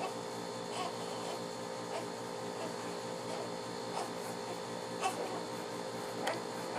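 Repeated hiccups: five short, sharp little sounds spaced about one to two seconds apart, the loudest two near the end, over a steady low hum.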